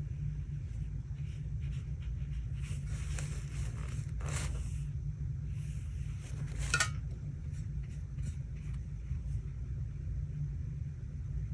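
Paintbrush stroking wet watercolour onto paper in soft, scratchy swipes, with two sharper strokes about four and seven seconds in, over a steady low hum.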